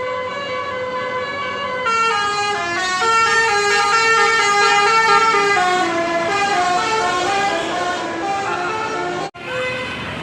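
Basuri musical truck horn playing a tune, its notes stepping up and down in pitch. It cuts off abruptly about nine seconds in, leaving road noise.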